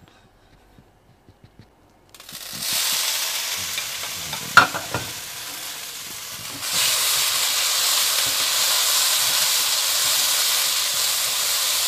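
Yellow egg noodles sizzling in hot oil in a wok, starting suddenly about two seconds in and frying louder from about halfway as they are stir-fried with a spatula. A single sharp clatter sounds a couple of seconds after the sizzling starts.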